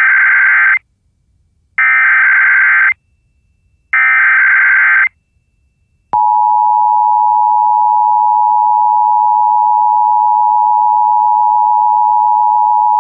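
Emergency Alert System header data: three harsh electronic bursts, each about a second long with about a second of silence between them. A second later comes the EAS attention signal, a steady two-tone beep at 853 and 960 Hz, which starts abruptly and holds unbroken. Together they open a Required Monthly Test.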